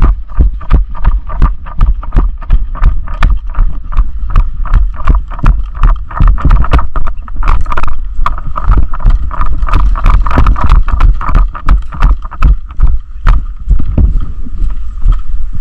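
Footsteps and rattling gear picked up by a body-worn action camera while walking briskly, about three steps a second, over a low rumble of wind and handling on the microphone.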